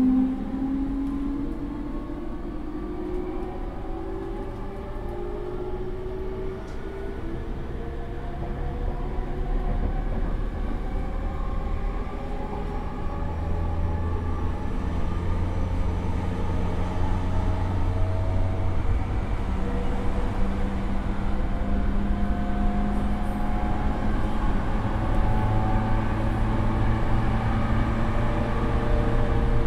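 JR E231 series motor car with its original Mitsubishi IGBT VVVF inverter, heard from inside the car: several motor tones climb slowly in pitch as the train gathers speed, over a wheel-and-rail rumble that grows louder.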